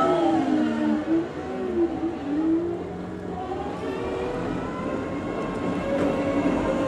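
Heavy diesel construction machine working, its engine pitch rising and falling in the first few seconds, then holding steadier.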